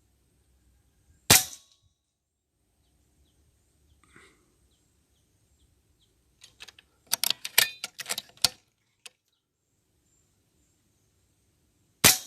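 Two shots from a PCP air rifle, each a single sharp crack, about eleven seconds apart: one about a second in and one at the very end. A quick run of mechanical clicks and rattles comes a few seconds before the second shot.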